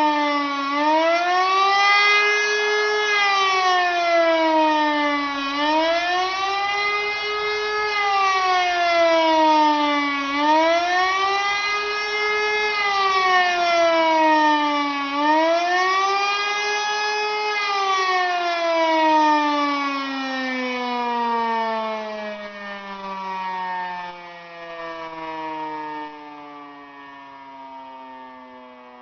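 E57 motor siren sounding the "Warnung" warning signal in a siren test, its pitch rising and falling in a slow wail about every five seconds. After the fourth swell, about two-thirds of the way in, it winds down, the pitch sliding steadily lower as it fades.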